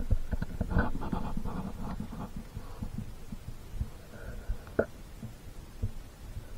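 Dog gnawing and chewing a raw lamb leg bone: irregular low knocks and wet chewing, with a busier stretch of crunching about a second in and a sharp click near the end.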